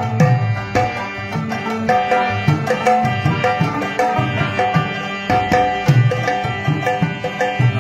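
Harmonium playing a melody of held notes over a hand-drum rhythm with deep bass strokes: an instrumental passage between sung lines of a Pashto ghazal.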